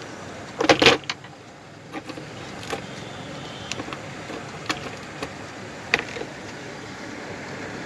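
Parts of an opened induction cooktop being handled: a short rattling scrape about a second in, then scattered sharp clicks as the plastic housing and copper coil are moved, over a steady background hiss.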